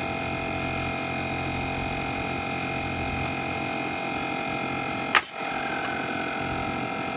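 Steady hum of a Bostitch air compressor running, with a single sharp shot from a Metabo HPT pneumatic nail gun about five seconds in.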